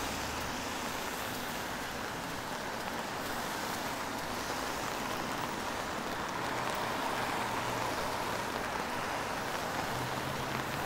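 Steady hiss of rain and traffic on a wet city street, swelling slightly about two-thirds of the way through as a vehicle passes.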